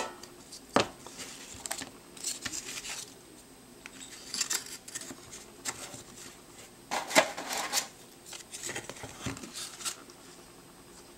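Thin card-stock deck partitions being handled and slotted together: scattered scrapes, rubs and light taps, busiest and loudest about seven seconds in.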